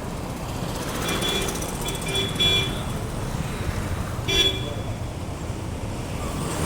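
Street traffic at a bus stop: a steady low rumble of vehicles, with a run of short horn toots between one and three seconds in and one more a little after four seconds.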